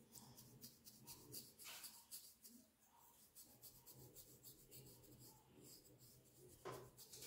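Faint, repeated scratching of a fine-tooth plastic comb dragged through short, tightly curled hair against the scalp, in quick irregular strokes.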